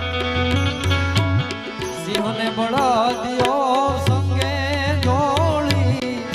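Gujarati folk music: a wavering lead melody over regular drum beats and a deep bass line that drops out for a moment about two seconds in.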